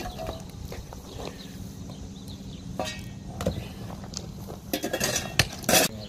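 Chunks of broken asphalt and concrete clinking and clattering as they are shoveled and tossed into a dump trailer, with shovel blades scraping. A few scattered knocks come around the middle, then a denser, louder burst of clattering near the end, over a steady low hum.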